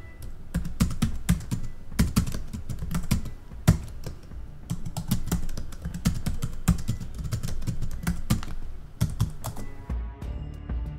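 Typing sound effect: a quick, irregular run of key clicks, several a second, stopping near the end, over faint background music.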